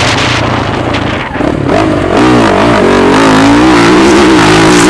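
Motocross bike engine revving, its pitch rising and falling quickly as the throttle is worked. It dips briefly about a second in, then comes back louder.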